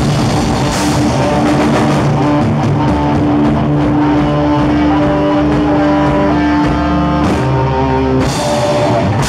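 Live hard rock band playing loud: electric guitars, bass and drum kit, with long held notes and chords and cymbal crashes about a second in and again near the end.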